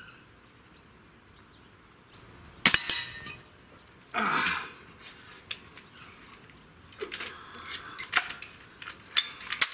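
Hatsan Torpedo 150 Sniper .25-calibre gas-piston air rifle, fitted with a suppressor, firing one shot: a single sharp crack about two and a half seconds in, followed a second and a half later by a short noisy burst. From about seven seconds, a string of sharp clicks and clacks as the under-lever is worked to cock and reload the rifle.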